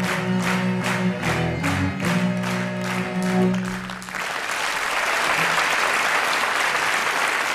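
Cello and bagpipe music over a steady clapped beat, ending about four seconds in, then a theatre audience applauding.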